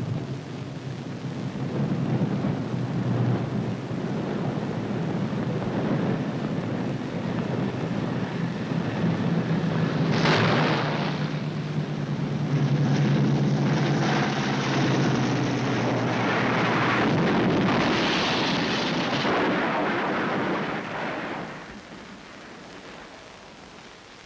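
Twin-engine B-25 Mitchell bomber's engines droning as the damaged plane comes in low to crash-land. A sudden loud noise comes about ten seconds in, then a loud rushing din that falls away about three seconds before the end.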